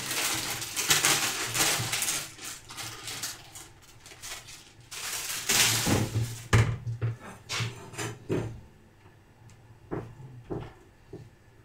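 Plastic food packaging crinkling and rustling for the first few seconds, with more rustling and a few heavier knocks around the middle. Near the end, a knife taps a few times on a cutting board as cheese is cut.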